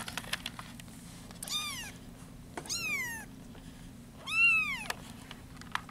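Young kittens' mews: three short high-pitched mews, each rising and then falling in pitch, the last one about four seconds in the loudest, with a few faint clicks between them.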